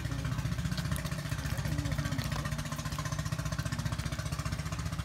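Small boat engine idling steadily, a fast, even low chugging.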